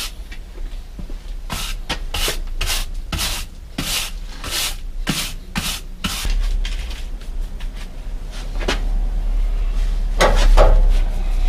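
Broom sweeping a floor: a run of short, brisk strokes, about two a second, for the first six seconds. It turns to quieter shuffling, then one louder scrape near the end.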